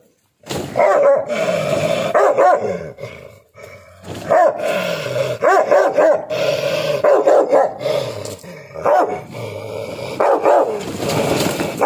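Rottweiler barking and growling in repeated bursts, with a short pause a little before four seconds in.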